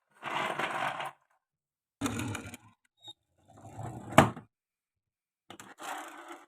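Marbles rolling and rattling along a wooden marble-run track in four short bursts, with one sharp clack of a marble striking wood a little past four seconds in.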